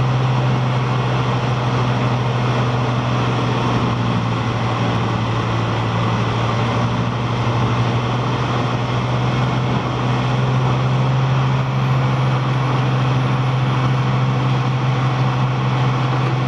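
Heavy wood-chipping machinery running steadily: a loud, even engine drone with a strong low hum under a dense mechanical rush, with no change in pitch or load.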